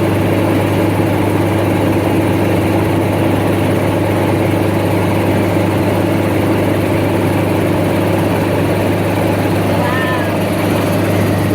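Helicopter in flight: a steady, unbroken drone of engine and rotor with a constant low hum that holds one pitch.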